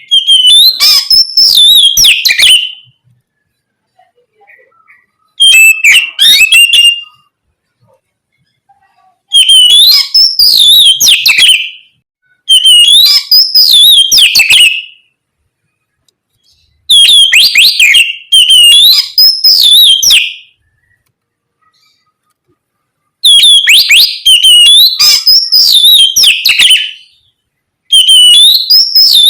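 Oriental magpie-robin singing loud, vigorous whistled song phrases with rising and falling notes. There are about seven phrases, each two to four seconds long, with short silent pauses between them.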